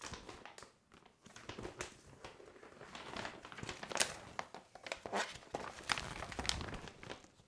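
A large folded playmat sheet being unfolded by hand, rustling and crinkling in irregular crackles.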